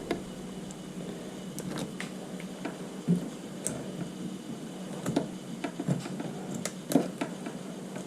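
Scattered clicks and knocks of hand tools working on metal snowmobile fuel-system parts, over a steady low hum.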